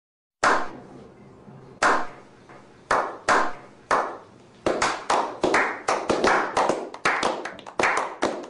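A slow clap from a small group. Single hand claps start about half a second in, spaced about a second apart, then come faster and overlap as more people join, until there are three or four claps a second.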